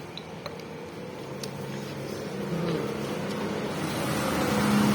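A motor vehicle on the adjacent road running and approaching, its engine hum growing steadily louder, with a few faint light clicks early on.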